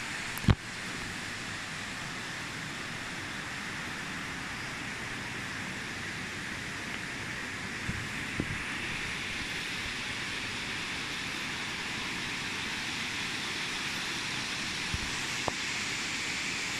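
Steady rushing of a stream's water over rocks. A sharp knock about half a second in, and a few faint ticks later on.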